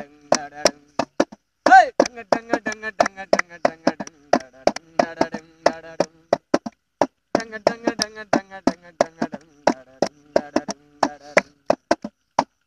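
Men's voices chanting a Bengali folk song's rhythmic 'dang dang' syllables over fast, sharp percussive knocks, about three to four a second, that keep the beat.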